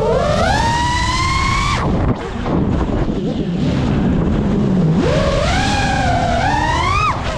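FPV racing quadcopter's brushless motors whining, rising in pitch as the throttle is punched, cutting out suddenly about two seconds in, then climbing again from about five seconds in and cutting just before the end. Low wind rumble on the onboard camera fills the gap between.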